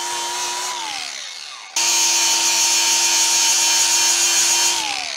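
Angle grinder with a flap disc grinding down the welded aluminium skeg repair on an outboard's gearbox: a steady motor whine with a grinding hiss. About a second in the pitch drops as it slows, then it comes back suddenly at full speed and slows again near the end.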